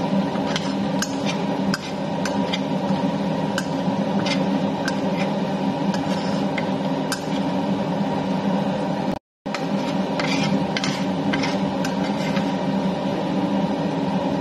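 Metal spatula scraping and tapping against a stainless steel wok while minced peanuts are dry-toasted, in irregular clicks over a steady hum. The sound cuts out for a moment about nine seconds in.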